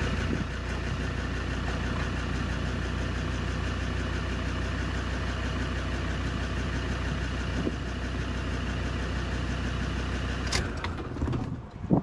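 Land Rover Discovery 2 engine idling steadily, heard from inside the cab, running normally after its ECU has been relocated and rewired. It shuts off about ten and a half seconds in, with a couple of clicks.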